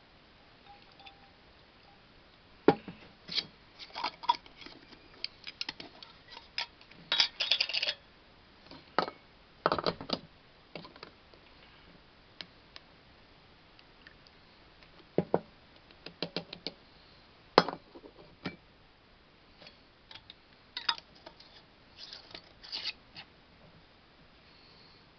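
Glass mason jars, a plastic funnel and metal canning lids handled on a wooden cutting board: irregular clinks, taps and knocks, with two sharper knocks, one near the start and one about two-thirds through, and a metal lid being screwed onto a jar near the end.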